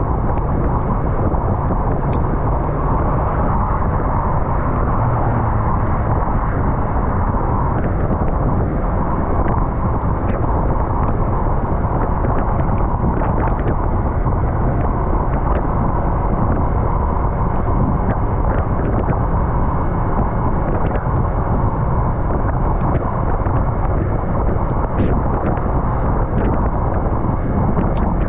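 Yamaha MT-03's parallel-twin engine running at a steady road speed, mixed with wind rushing over the microphone. The level stays even, with no big revs or gear changes.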